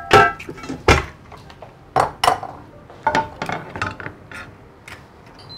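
Eggs being tapped and cracked against the rim of a glass mixing bowl: a string of sharp clinks and shell cracks, spaced irregularly, some a fraction of a second apart.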